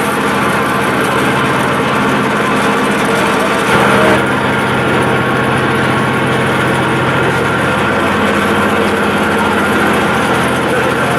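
Ferry engine running steadily, a constant drone heard on board, with a brief louder swell about four seconds in.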